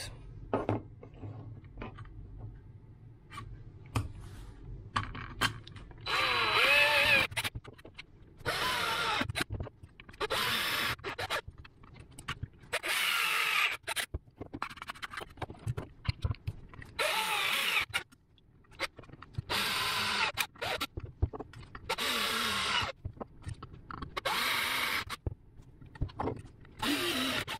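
Electric drill boring mounting holes through a thin metal chassis plate: about nine short runs of a second or so each, the motor's pitch sagging and recovering as the bit cuts through, with light handling clicks in between.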